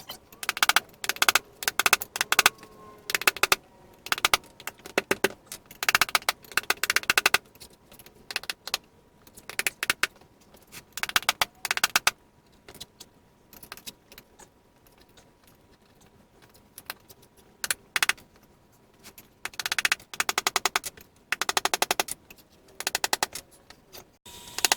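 Ratcheting hand tool clicking fast in repeated short bursts, each half a second to a second and a half long, with brief pauses between them, as it is worked on a tractor tire during a flat repair.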